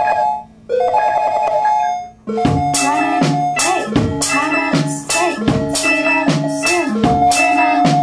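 Electronic music played live on a drum machine or sampler: a repeating synth chord figure cuts in and out, then about two seconds in a programmed beat comes in, deep kicks that drop in pitch with snare and hi-hat hits roughly every 0.8 s under a melody.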